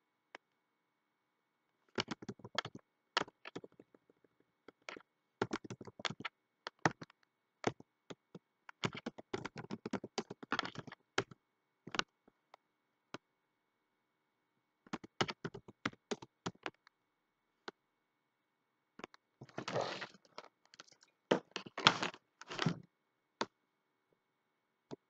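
Typing on a computer keyboard: about five bursts of quick key clicks, separated by pauses of a second or more.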